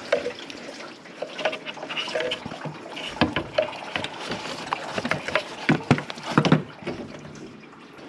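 Engine coolant dribbling and splashing as the leaking thermostat housing of a 2.4 L engine is worked loose, among irregular clicks and knocks from the parts being handled.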